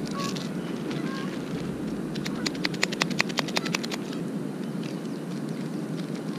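Steady low rushing of a FIREMAPLE Polaris gas canister stove burning at a simmer, with a quick run of crinkling clicks about two and a half seconds in as a foil ramen seasoning packet is torn open.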